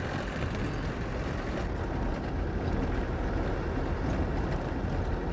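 Land Rover Defender driving along a dirt track: a steady low rumble of engine and tyres.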